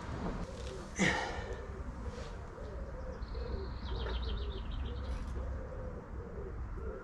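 A pigeon cooing over and over in a low wavering call, with a small bird trilling briefly midway and wind rumbling on the microphone. A single sharp knock about a second in.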